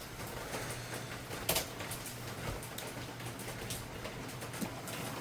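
Steady noise of heavy rain, with a low steady hum under it and a few sharp ticks, the loudest about a second and a half in.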